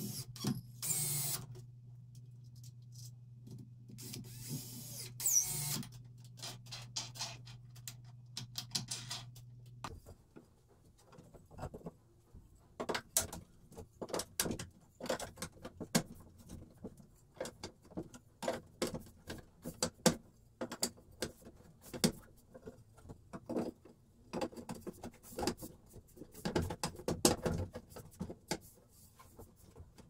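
A cordless drill-driver runs in two short bursts, driving screws through a caster's mounting plate into plywood. Then come many irregular knocks and clatters of wooden slats and boards being handled and fitted into a frame.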